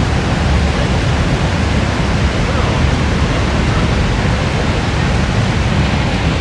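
Niagara Falls' water pouring down close by: a loud, steady rushing noise with a heavy low rumble.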